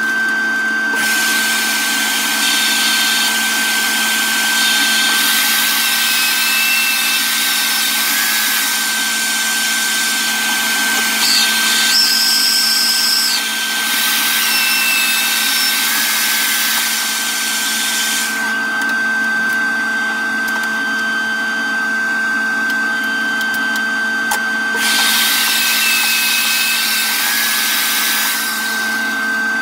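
A table saw and its dust extraction switch on and run with a steady motor whine. Several stretches of harsher noise lasting a few seconds each are the blade cutting through a blue plastic board.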